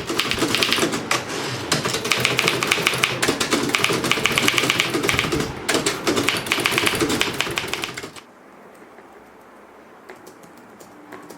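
Manual typewriter being typed on fast: a dense run of key strikes that stops about eight seconds in, leaving a much quieter stretch with a few faint ticks.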